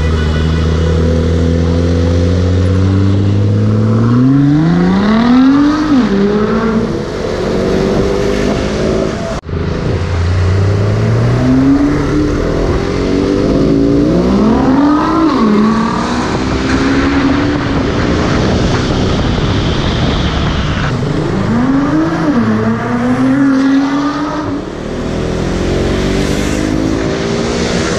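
Nissan GT-R's twin-turbo V6, breathing through an Fi aftermarket exhaust, accelerating hard in repeated bursts. Its note climbs in pitch through each gear and drops back at the shifts, several times over, with a brief break about a third of the way in.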